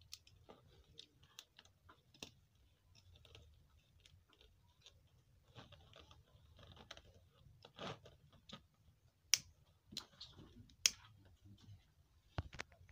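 Faint, scattered clicks and crinkles of a woven plastic mat bag being pressed and handled by hand, with a few sharper clicks standing out about nine and eleven seconds in.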